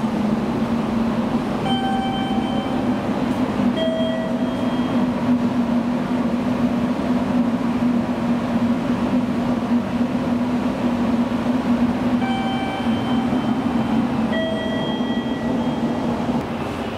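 Steady low hum of a train standing at a station platform. Over it an electronic two-note chime, a higher note then a lower one, sounds twice about ten seconds apart.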